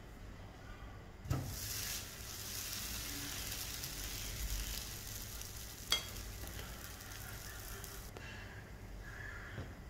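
A just-flipped pancake sizzling on a hot flat pan. A knock sets off the sizzle about a second and a half in, a sharp click comes near six seconds, and the sizzle cuts off abruptly near the end.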